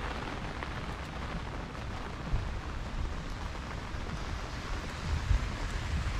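Rain falling steadily, an even hiss, over a low rumble, with a couple of brief low thumps about two and five seconds in.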